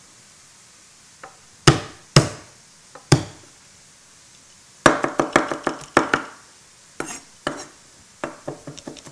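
Chef's knife chopping and mincing garlic cloves by hand on a board. First a few separate sharp knocks, then from about five seconds in runs of quick chopping strokes, lighter and faster near the end.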